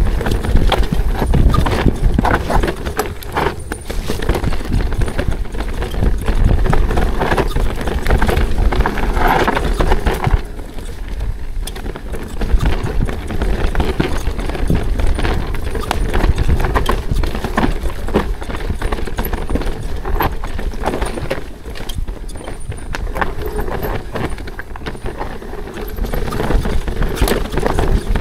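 Full-suspension mountain bike riding down a rocky trail: a rapid, irregular clatter of tyres knocking over rocks and roots and the chain and frame rattling, over a steady low rumble.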